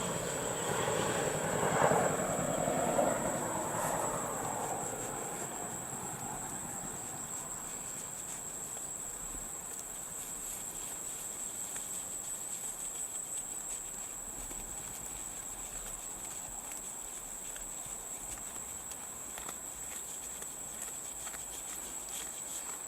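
Insects trilling in one steady, high, unbroken tone over quiet outdoor background. A softer, duller noise fades away over the first few seconds.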